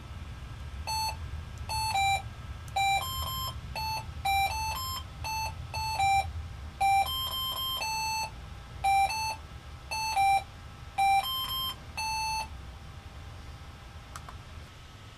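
Arduino Mega playing an RTTTL ringtone as a tune of short, buzzy electronic beeps. The beeps start about a second in and stop a few seconds before the end.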